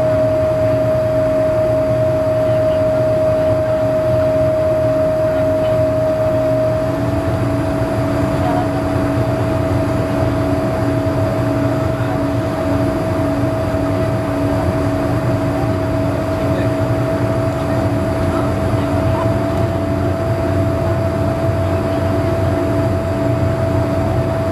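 Cabin noise of a BAe Avro RJ100 on final approach: its four Honeywell LF507 turbofans run with a steady whine over a constant rushing roar. The whine steps up slightly in pitch twice, and a lower hum pulses in level underneath.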